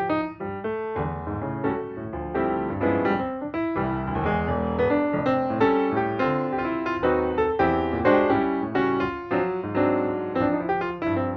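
Piano music: a steady run of struck notes, several a second, over low bass notes.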